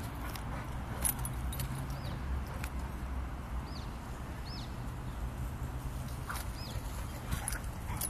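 Light jingling and clicking from a dog's collar and tags as it jumps and lands, over a steady low rumble, with a few short high chirps.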